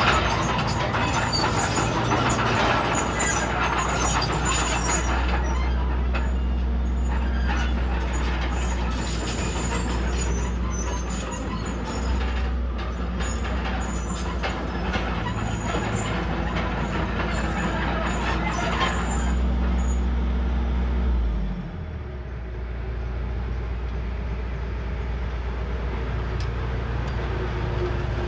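Komatsu D31PX crawler bulldozer's diesel engine working under load, with frequent clanking. About 21 seconds in the engine speed drops suddenly, and it settles into a lower, steadier run.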